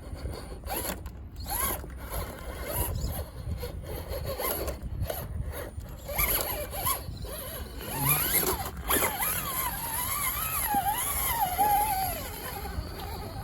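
Traxxas TRX-4 Sport radio-controlled scale crawler's electric motor and geared drivetrain whirring and clicking in short, stop-start bursts as it crawls. In the second half a wavering whine rises and falls for a few seconds.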